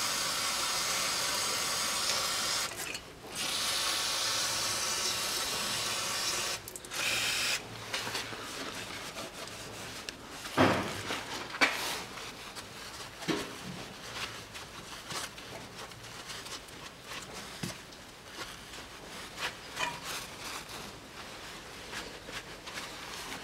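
Aerosol carburetor cleaner spraying onto a rear differential housing in three hissing bursts, the first two about three seconds each and the last short. Then comes quieter rubbing as a gloved hand wipes the housing, with a few light knocks.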